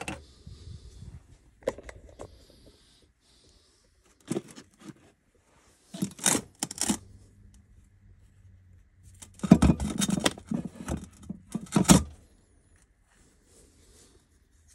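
Handling noise on a steel workbench: small parts and objects being picked up, slid and knocked down in several separate bursts of scraping and clatter, the longest and loudest cluster about two-thirds of the way through.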